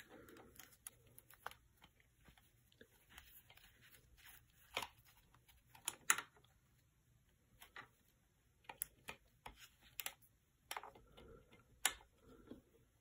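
Faint, irregular clicks and taps of pliers and small plastic and metal parts as the forward tilt cord's end is worked into its hole in a Herman Miller Aeron's tilt mechanism.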